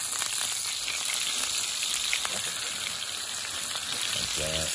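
Venison roast searing in hot oil in a cast iron skillet: a steady sizzle with small crackles and pops.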